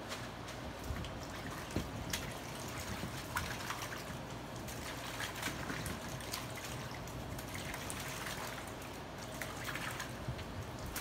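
Liquid dripping and trickling, with many small scattered taps and clicks, from wet plaster work.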